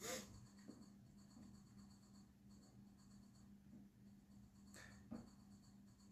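Near silence: room tone with a faint steady hum, broken by a few soft taps, one at the start and two close together about five seconds in.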